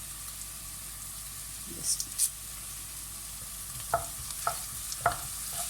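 Chopped onion and fennel seeds sizzling in hot vegetable oil in a pan, a steady hiss. Two brief scrapes come about two seconds in, and from about four seconds in a spoon knocks and scrapes against the pan several times as the onions are stirred.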